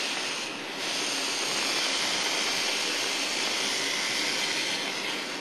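Spray bottle of tap water hissing steadily as it rinses wet fingerprint powder off the adhesive side of tape, with a brief break about half a second in; the spray cuts off at the end.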